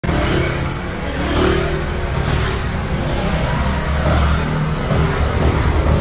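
Motorbikes and scooters riding along a road, their engines a shifting low hum under a steady rushing noise.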